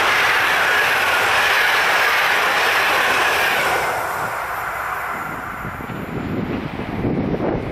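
Intercity passenger coaches behind an EP09 electric locomotive rolling past at speed: a steady rush of wheels on rail that fades away about four seconds in as the end of the train passes. Near the end a low, gusty wind rumble on the microphone comes in.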